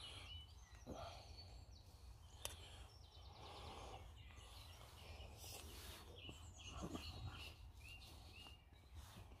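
Near silence: a few faint clicks and small mouth sounds of someone eating, with faint short high chirps.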